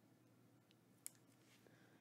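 Near silence, with one sharp click about a second in as a trading card in a plastic sleeve is set down on a stack of cards.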